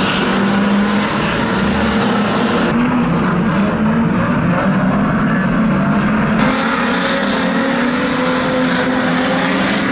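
Engines of a pack of pre-1975 saloon banger-racing cars running hard together around a shale oval, a dense, steady drone of several engines at once. The sound changes abruptly about three seconds in and again about six and a half seconds in.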